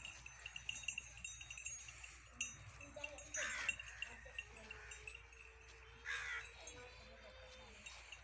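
Livestock calling at a cattle farm: short harsh calls about every three seconds and a long steady call in the middle, over faint clinking.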